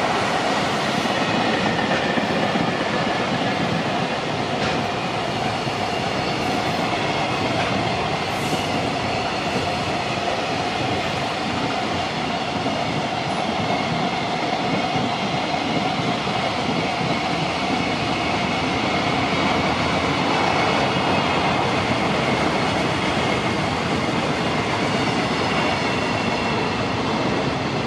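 A long JR Freight container train's wagons rolling past on the rails: a steady, loud rumble of wheels on track with a faint high ringing note over it.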